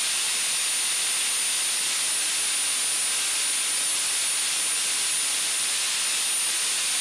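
Angle grinder running free at full speed, not cutting: a steady rushing hiss with a thin, constant high whine.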